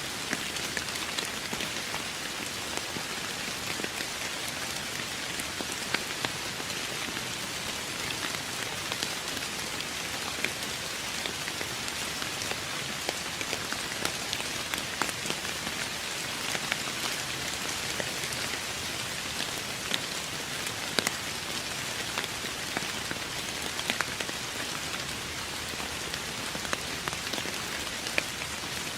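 Steady rain falling on a surface, an even hiss with many close individual drop ticks scattered through it.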